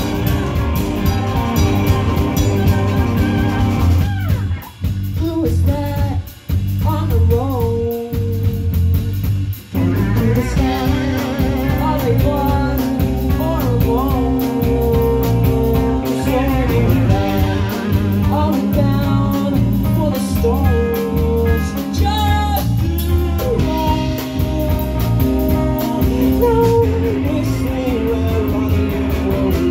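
A live rock band playing loud, with electric guitars and a drum kit. It makes a few sharp stops between about four and ten seconds in, then plays on with singing over the band.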